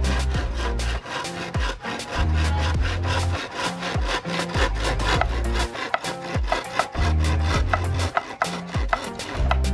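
Hand saw sawing through a green bamboo pole in quick back-and-forth strokes, over background music with a repeating bass line.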